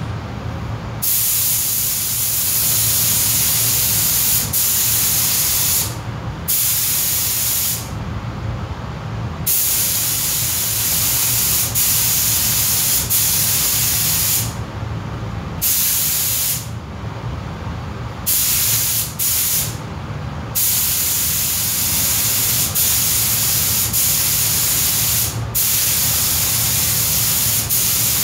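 Compressed-air paint spray gun hissing in long passes as primer is sprayed on, with the air cutting off briefly about seven times when the trigger is released. A steady low hum runs underneath.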